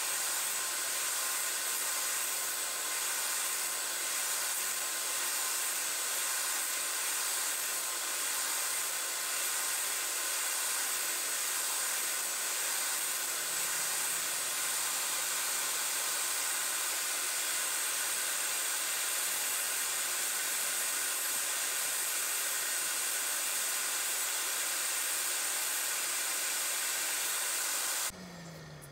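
DeWalt DWE7492 10-inch jobsite table saw running steadily, with the whine of its universal motor, while it cuts MDF blanks on a crosscut sled. The sound cuts off abruptly near the end.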